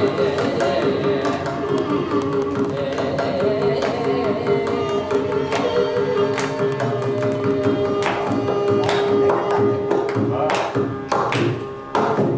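Carnatic group vocal singing with violin accompaniment over a held drone-like note, with hand-drum strokes that stand out more in the last few seconds.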